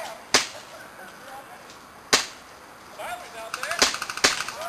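Airsoft guns firing single shots: four sharp cracks, the first two about two seconds apart and the last two close together near the end.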